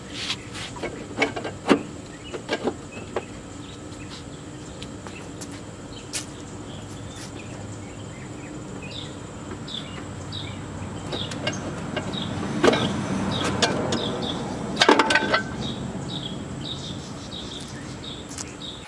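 Scattered metal clanks and knocks from hand tools and suspension parts being handled, over a steady background. A short high chirp repeats about twice a second through the later part.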